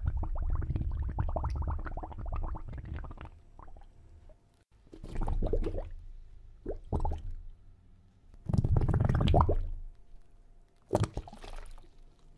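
Watery bubbling and gurgling with a low rumble, dense for the first few seconds, then coming in separate bursts of about a second each, with short pauses between them.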